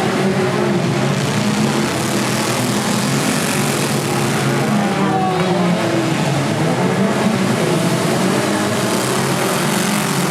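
Many four-cylinder demolition derby cars running together, their engines revving up and down in a steady, loud mass of engine noise.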